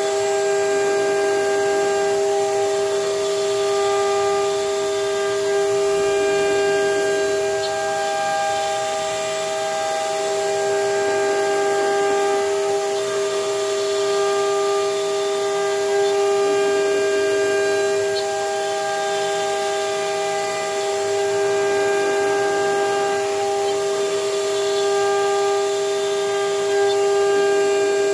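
CNC router spindle running at high speed while its small end mill cuts a shallow pocket in a wood board: a steady whine of several held tones, with some of the higher tones dropping out and coming back as the cut moves along.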